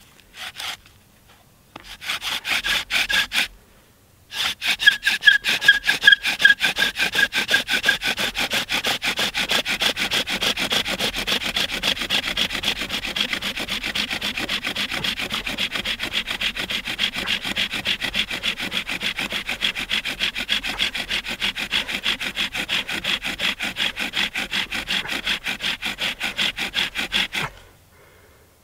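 Bow drill friction fire: the bow sawed fast back and forth, the cedar spindle grinding in the cedar hearth board's notch in quick, even strokes. A short first run and a brief pause are followed by one long steady run that squeaks for its first few seconds and stops suddenly near the end. This is the final drilling that builds the smoking coal.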